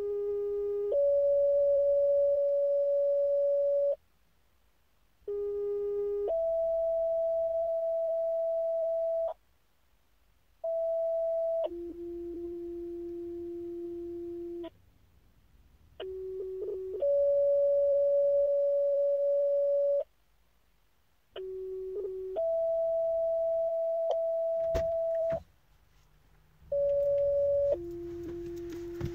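Fire dispatch two-tone sequential paging tones from a Motorola Minitor pager and a Motorola portable radio during a weekly pager test, setting off each fire company's pagers in turn. Five tone pairs, with a sixth starting near the end: each pair is a short steady tone of about a second, then a longer tone of about three seconds at a different pitch, with a brief silence between pairs.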